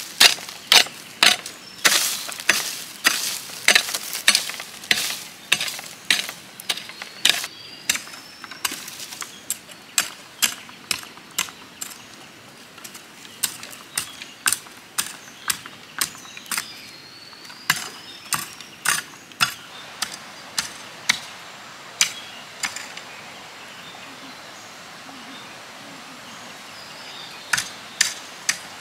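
Hoe chopping into dry, stony soil: sharp strikes repeated about one to two times a second, which stop about 23 seconds in and start again near the end.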